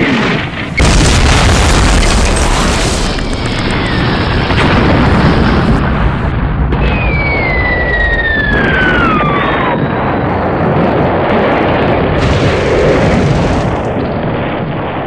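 Battle sound effects: explosions blending into a continuous heavy rumble, with the whistle of a falling bomb dropping steadily in pitch from about seven seconds in, and fainter falling whistles around it.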